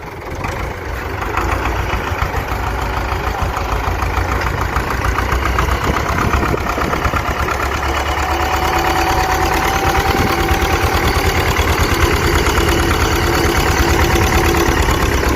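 Tractor engine running steadily with an even, rapid chugging beat, growing louder over the first couple of seconds and then holding.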